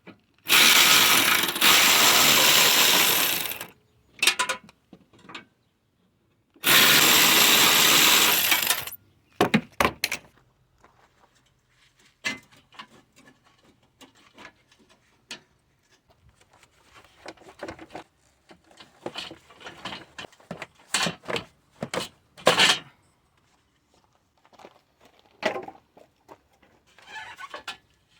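A cordless power tool runs twice, about three seconds and then about two seconds, spinning out the 10 mm bolts that hold the hood-latch bracket. Scattered light metallic clicks and knocks follow as the bolts and parts are handled.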